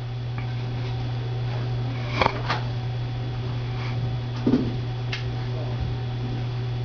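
Steady low electrical hum from a reflow oven running with its heating elements switched on, climbing toward its peak temperature. A few light clicks and knocks come about two, two and a half, four and a half and five seconds in.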